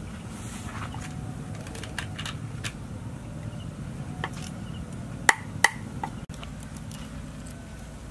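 Cleaver blade knocking on a wooden log chopping board while small catfish are cut and cleaned: a few light taps, then two sharp chops a little past halfway and a lighter one just after.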